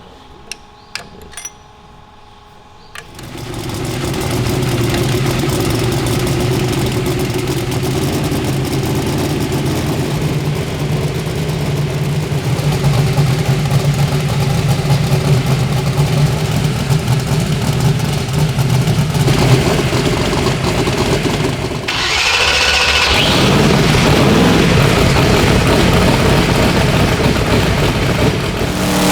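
Twin-turbocharged Hemi V8 drag-race engine starting about three seconds in, after a few light tool clinks, then idling steadily. Late on, its sound dips briefly, a short rising rev follows, and it settles into a louder, steady idle.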